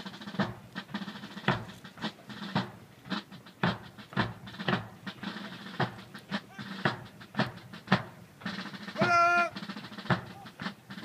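A drum beating a steady marching cadence, about two beats a second, for troops marching in step. About nine seconds in, a single long, drawn-out shouted drill command rings out over it.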